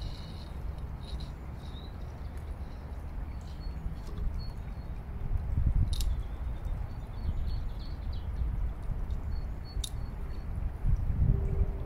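Small birds chirping over a low, fluctuating outdoor rumble, with two sharp clicks, one about halfway through and one near the end.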